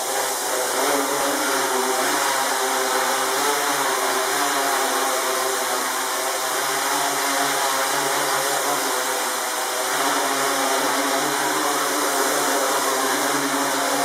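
A small tricopter's three brushless motors and propellers run with a steady, many-toned buzz as it flies. The sound grows louder over the first second as the motors spool up.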